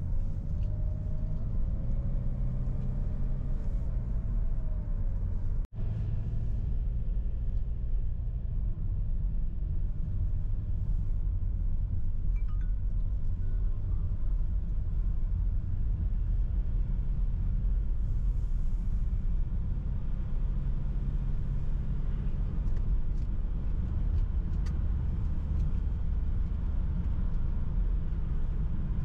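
Steady low rumble of a car driving, with road and engine noise heard from inside the cabin. The sound cuts out for a split second about six seconds in.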